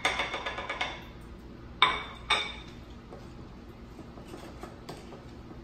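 Wooden spoon scraping and tapping dry seasonings off a small plate into a glass bowl, a quick run of small clicks, with two sharp knocks about two seconds in. After that, light ticks of the spoon in the glass bowl of raw goat meat.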